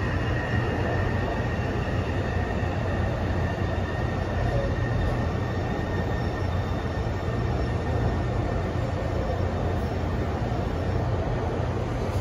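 A Taipei Metro C301 train running between stations with a steady low rumble. A faint high whine fades away over the first few seconds.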